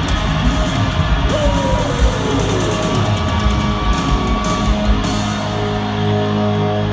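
Live hard rock band playing loud in an arena: electric guitars, bass and drums, with one note gliding down in pitch over about a second and a half, starting about a second in.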